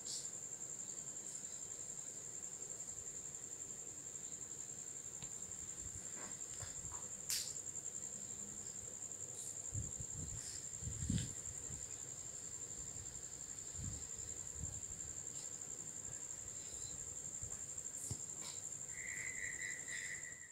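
Steady, high-pitched trilling of insects, with a few dull knocks about seven and eleven seconds in.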